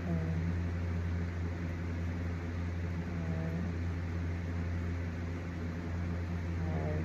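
A steady low hum with an even hiss over it, like a fan or appliance running, and a few faint short squeaks.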